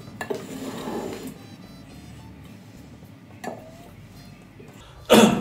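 Background music under a few light clinks of tableware, with a loud clatter near the end.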